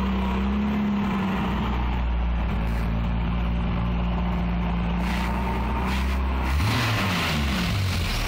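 Jaguar E-type's XK straight-six engine running at low revs as the car creeps along under its own power. About six and a half seconds in, the engine note swings down and up as the revs change.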